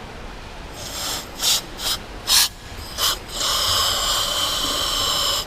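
Hollis 200LX DCX scuba regulator passing air: four short hisses, then a steady hiss of about two seconds that cuts off sharply. This regulator has a clicking fault, later traced at service to its high-pressure seat.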